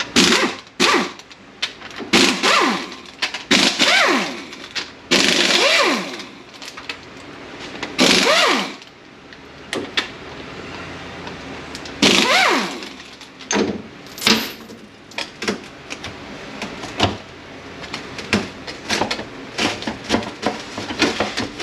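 A power tool spins out 15 mm housing bolts on an 8L90 automatic transmission in a series of short runs, its motor whine rising and falling each time. Short metallic clicks and knocks come between the runs.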